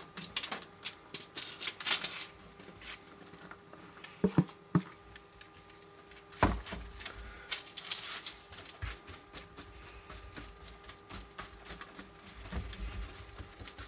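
Caramel-coated popcorn being spread out on a parchment-lined sheet pan: irregular light clicks and rustling scrapes, with a louder knock about six and a half seconds in.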